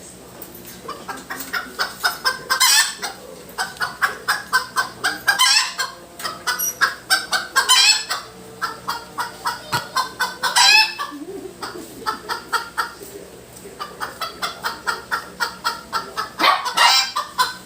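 A bird calling loudly: runs of quick, evenly spaced clucking notes, several a second, each run broken by a loud, harsh squawk, about five times over.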